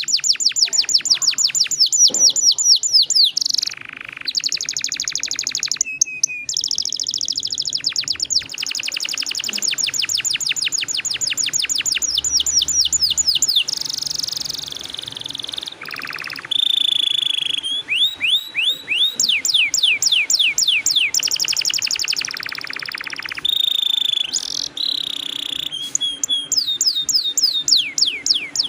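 Domestic canary singing a long, rolling song: fast trills of repeated falling notes, many a second, strung into phrases that switch from one trill type to another with brief pauses.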